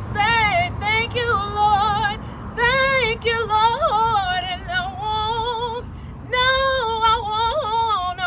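A woman singing a gospel song solo, holding long notes with a strong vibrato and sliding through melismatic runs.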